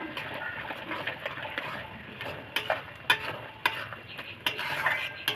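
Chopped onion and green chillies frying in hot oil in a pan, with a steady sizzle. A utensil stirring them scrapes the pan and strikes it in several sharp clinks over the second half.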